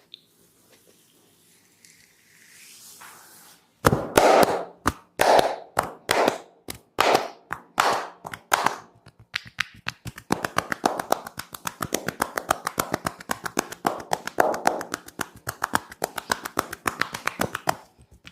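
Percussive massage: hands slapping and clapping on the client. First comes a series of loud single slaps about a second apart, then from about ten seconds in a long fast run of rapid chopping strikes.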